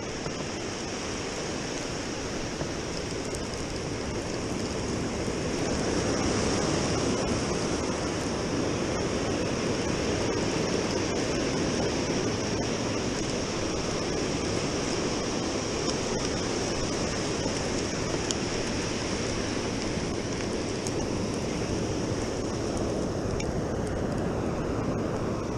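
Small ocean waves breaking and washing up on a sandy beach, a steady rush that grows louder about six seconds in.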